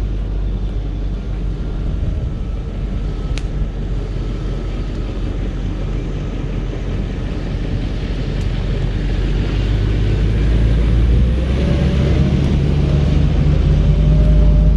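Land Rover Discovery II engine running under load as the truck drives through mud, a steady rumble that grows louder with a wavering, rising engine note after about ten seconds.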